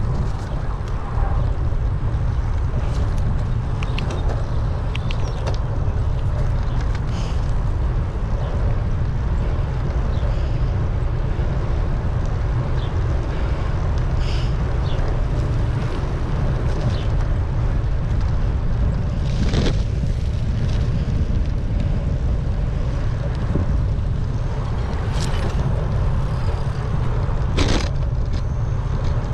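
Steady low rumble of wind buffeting a bicycle-mounted action camera's microphone while riding, mixed with road noise. A few sharp clicks and rattles come through, the clearest about two-thirds of the way in and near the end.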